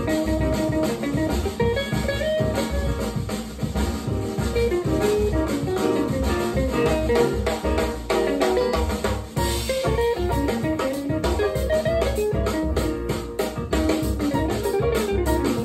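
A band's music with guitar and drum kit, played back through Celef LS8 bookshelf loudspeakers in a living room, with a steady beat.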